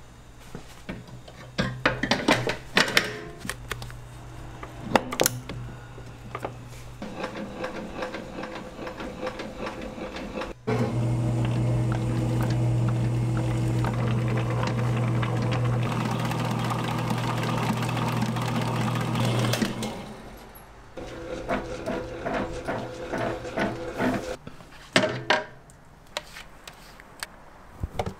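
Commercial stand mixer running with a wire whisk beating thick yellow cream in a stainless steel bowl, a steady motor hum. About a third of the way in the hum becomes louder and steadier for about nine seconds, then drops back. Around that stretch come clicks and metal knocks from the bowl and whisk being handled.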